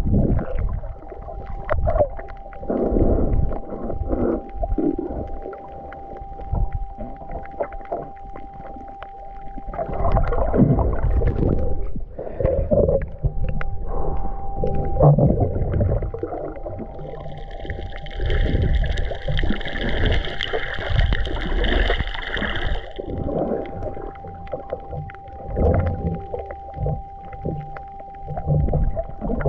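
Muffled water sloshing and gurgling around a submerged camera, with a steady faint whine underneath. For several seconds past the middle, a hissing noise joins in, then cuts off.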